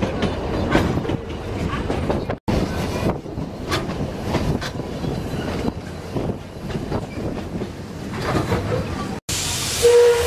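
Narrow-gauge steam train heard from an open-sided carriage: the steady rumble and clatter of the carriage wheels on the rails, broken by two abrupt cuts. Near the end, steam hisses and a short loud tone sounds.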